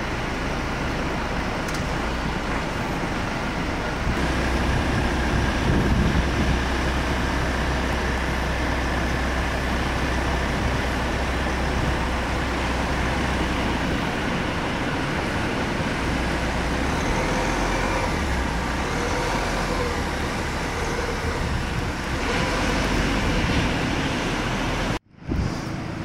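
Steady roar of breaking surf with wind rumbling on the microphone. The sound cuts out for a moment near the end.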